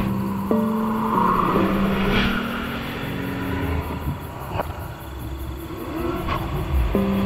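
Dark horror score: low sustained drone notes that shift pitch abruptly, over a rumble, with a rising swell and a few whooshes.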